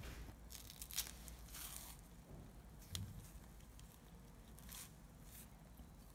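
Bananas being peeled by hand: faint tearing of the peels in several short strokes, with a light tap about a second in and another about three seconds in.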